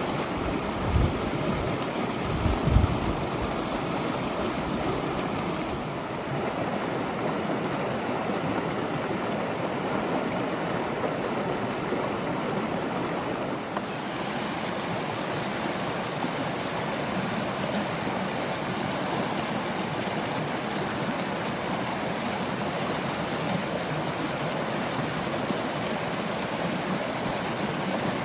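River water flowing with a steady rushing. In the first few seconds there are a few low buffets of wind on the microphone.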